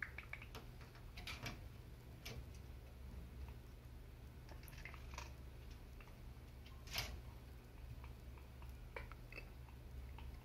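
Faint, scattered clicks and small scrapes from an African grey parrot on the wooden top of a door, with one sharper click about seven seconds in. A low steady room hum lies underneath.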